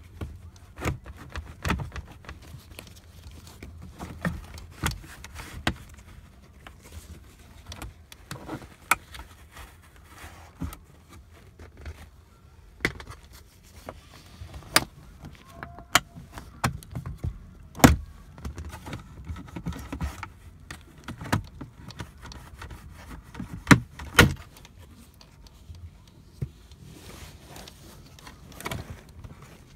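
Irregular plastic clicks, knocks and rattles as a plastic trim tool pries the rear center-console air-vent trim panel of a BMW E90 3 Series away from its retaining clips. The loudest knocks come just past halfway and about four-fifths of the way through.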